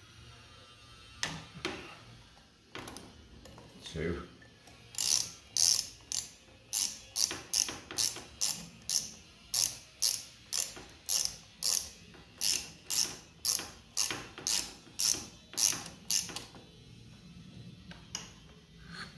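Socket ratchet wrench clicking as it winds out an 8 mm bolt on a scooter's flywheel cover. There are a few single clicks first, then a long even run of quick strokes, about two a second, that stops a few seconds before the end.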